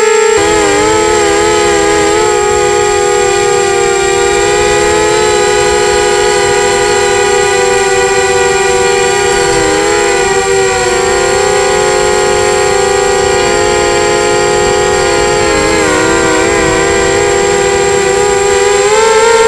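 Quadcopter's electric motors and propellers whining in flight. Several close pitches waver together with the throttle, dip a couple of times and rise near the end.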